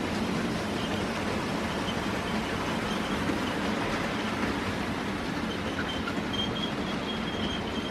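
Model train running on the layout: a steady whir of its electric motor and wheels on the rails, with a faint high-pitched squeal that comes and goes in the second half.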